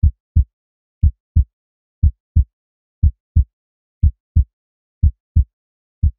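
Heartbeat sound effect: deep double thumps (lub-dub), about one beat a second, seven beats in all.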